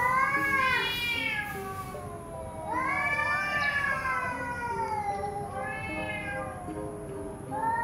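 Two cats yowling at each other in a standoff: long, wavering yowls that rise and fall in pitch, the warning threat calls that come before a cat fight. One yowl fades out about a second and a half in, a second long one starts about three seconds in, and a third begins near the end.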